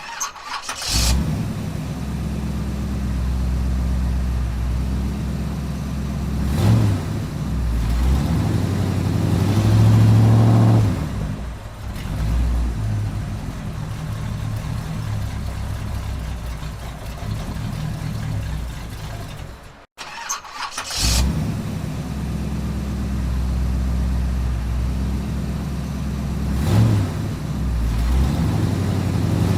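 Car engine cranking and catching, then idling, with a short blip of the throttle and then a longer rev that falls back to idle. It cuts off about two-thirds of the way through, and the same start, idle and rev begin again.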